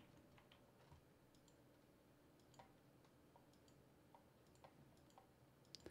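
Near silence: a few faint computer mouse clicks, scattered irregularly, while settings are picked in an on-screen editor.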